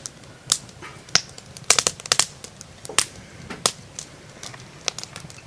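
Fork and knife clicking and tapping on a plate while eating, in irregular sharp clicks about one or two a second, the loudest cluster about two seconds in.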